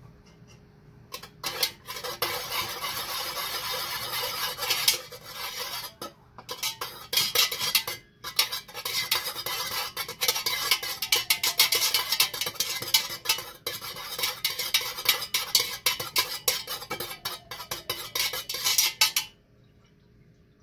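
Metal stirring utensil scraping and clinking against the inside of an aluminium pouring pot as it stirs fragrance oil into melted paraffin wax. It starts about a second in, has short breaks around five and eight seconds in, and stops abruptly near the end.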